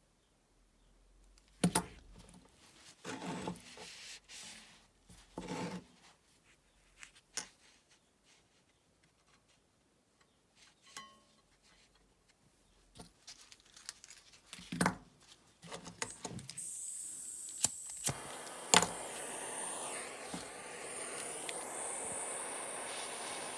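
Small metal parts and solder wire handled with gloved fingers on a soldering block, with scattered clicks and rubs. About two-thirds of the way through, a small gas torch starts up and hisses steadily, heating a brass cartridge case and nail for soldering. Two sharp clicks come soon after it starts.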